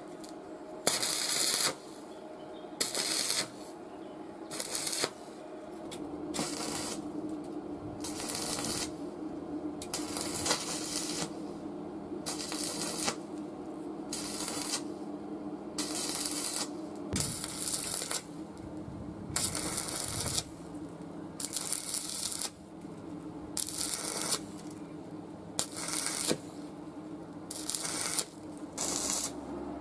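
Metal being worked by hand in repeated rasping strokes, each under a second long, roughly one every one and a half to two seconds, over a steady low hum.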